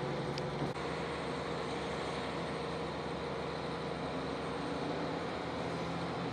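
Diesel local train of KiHa 40 and KiHa 150 railcars heard from inside the cabin as it pulls away from a station: a steady diesel engine hum under even running noise. There is a short break about a second in.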